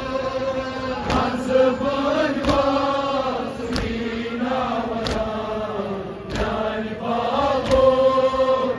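Kashmiri noha: a group of men chanting a mourning lament together, the sung lines held and sliding in pitch. A sharp beat lands about every 1.3 seconds in time with the chant, from mourners beating their chests (matam).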